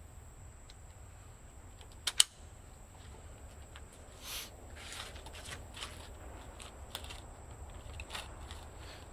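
Rifle being handled and readied to fire: a sharp double click about two seconds in, then scattered light clicks and rustling.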